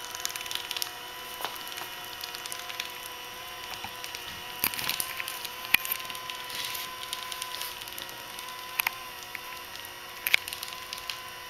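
Uniplan E hot wedge welder running as it travels along polyethylene billboard material welding a pole pocket: a steady motor whine with scattered crackles and sharp clicks, the loudest clicks about halfway through and near the end.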